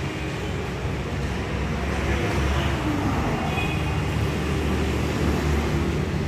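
Steady street traffic noise, with vehicle engines running and passing.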